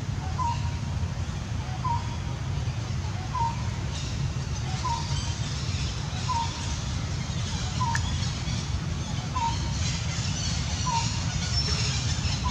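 A bird's short call repeating very evenly, about once every second and a half, over a steady low rumble and a faint high hiss.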